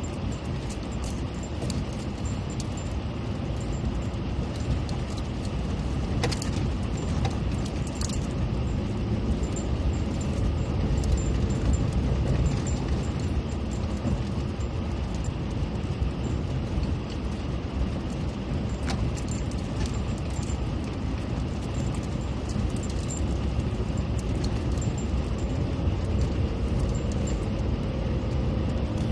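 A car driving, with a steady low rumble and scattered rattles and clicks throughout.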